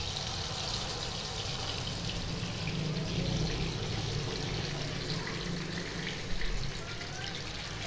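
Hot oil sizzling steadily in a kadai as marinated chicken leg pieces are laid in to fry.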